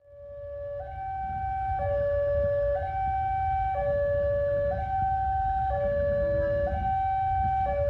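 Two-tone electronic warning signal alternating steadily between a lower and a higher tone, each held for about a second, over a low rumble. It fades in at the start.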